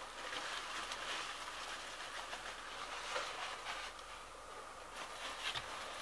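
Packing padding rustling and crinkling as it is pulled by hand from a cardboard box, with a few sharper crackles near the end.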